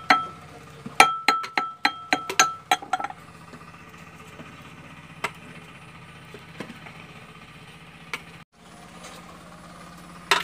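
A pestle pounding garlic, ginger, black pepper and chili in a mortar: quick ringing clinks, three or four a second, that stop about three seconds in. After that only a steady low hum and a few soft clicks remain.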